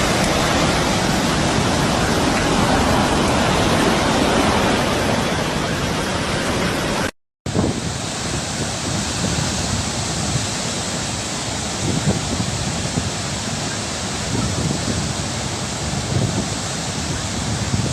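Loud, steady rush of water and wind noise from a rainstorm and flood. It cuts out for a moment about seven seconds in and comes back with a slightly different rush and a few scattered knocks.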